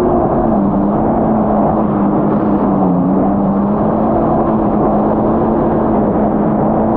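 Yamaha GP1800R SVHO jet ski's supercharged four-cylinder engine running at a steady pitch under held throttle, with a brief dip about three seconds in, over a heavy rush of wind and water.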